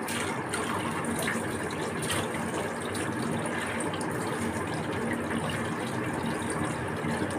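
Running tap water pouring steadily through a cloth bag of soaked whole moong beans to rinse them, with a few faint ticks.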